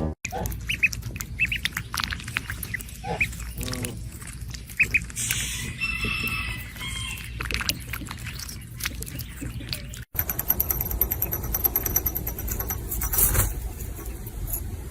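Short, high squeaky animal calls, scattered over a low rumble of background noise. About ten seconds in, the sound cuts to a steady noisy background with faint ticking.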